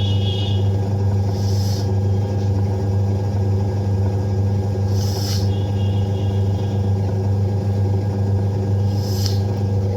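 Samsung top-load washing machine running with a steady loud motor hum, and a short swish roughly every four seconds. The machine is on its spin setting, but the technician says the gear does not shift over to turn the tub.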